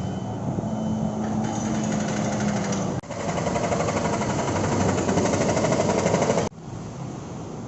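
Loud street noise dominated by a fast, even mechanical rattle, with an engine-like hum in the first few seconds. The sound changes abruptly about 3 s in and again about 6.5 s in.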